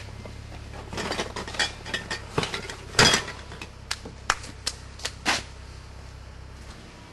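Beer cans clattering and clinking as a cardboard beer case is handled over a bin full of empty cans: a quick run of sharp clinks and knocks over a few seconds, the loudest about three seconds in.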